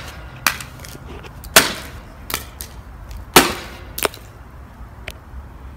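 A hammer striking a basketball hoop's clear backboard about six times in sharp, separate blows, two of them much louder, knocking pieces off the already cracked board.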